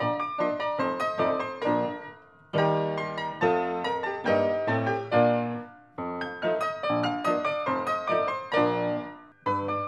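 Background piano music, played in short phrases that fade out briefly every three to four seconds.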